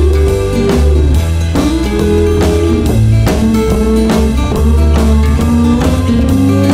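Instrumental break of a bluesy folk-rock band: a steady drum-kit beat and upright bass under a slide-guitar lead that glides up and down between notes.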